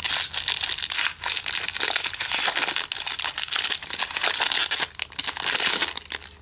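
Foil wrapper of a Topps Chrome trading-card pack crinkling and crackling as it is handled and torn open. The crinkling stops just before the end.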